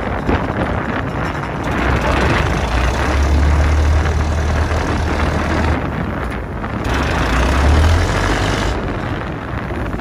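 Strong wind buffeting the microphone over the steady running of a small fishing trawler's engine, the rumble swelling with gusts a few seconds in and again near the end.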